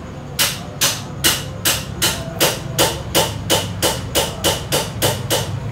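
Rapid, even tapping on the cast aluminium nose housing of a PS120 starter motor during reassembly: about fourteen strikes at nearly three a second, stopping shortly before the end.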